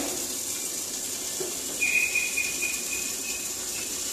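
Chopped onion and tomato frying gently in oil under a glass lid, a soft steady sizzling hiss. A thin high whistle sounds about two seconds in and lasts about a second and a half.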